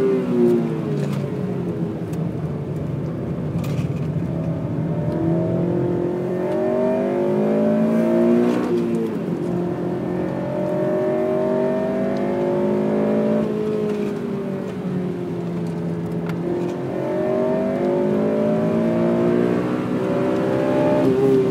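Honda Civic Type R FN2's 2.0-litre i-VTEC four-cylinder engine pulling hard, its revs climbing steadily over several seconds and dropping sharply at gear changes or lifts, about three times.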